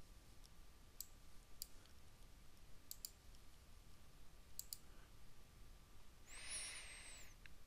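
Quiet computer mouse clicks, a few single and a few in quick pairs, spread out, as someone works a desktop screen; near the end a soft hiss lasting about a second.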